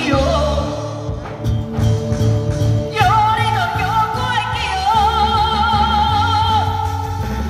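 Taiwanese opera (gezaixi) singing over its accompaniment band, amplified through a microphone: instruments with a low, pulsing beat, then about three seconds in a long, wavering, ornamented sung line enters and is held.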